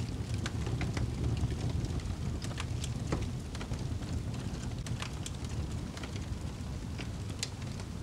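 Wood fire crackling, with sharp pops at irregular intervals over a steady low roar.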